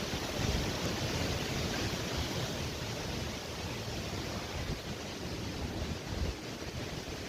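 Gusty storm wind: a steady rushing hiss with uneven low rumbles of wind buffeting the microphone.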